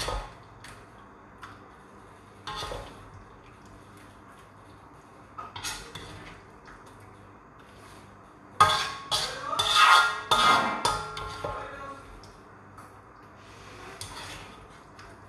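Ladle scraping and knocking against a metal wok as sweet and sour prawns in thick sauce are dished out into a bowl. A few separate knocks, then a busy run of scraping and clatter with some ringing from about nine to twelve seconds in.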